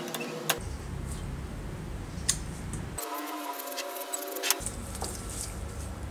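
A handful of sharp metallic clicks and taps, a second or two apart, from handling the drill's small cast-metal switch box and its switch mechanism.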